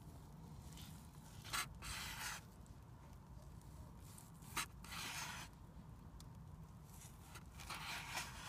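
Knife slicing through roast meat on a wooden board: three short cutting strokes about three seconds apart, the first two each starting with a sharp tap of the blade.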